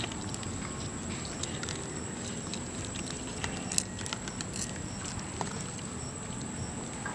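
Scattered small clicks and taps of cooked giant African snail shells being handled in the fingers, the loudest about four seconds in, over a steady background hiss with a thin high steady tone.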